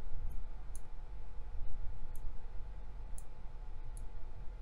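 Computer mouse clicking: four short, sharp clicks about a second apart, over a low steady hum.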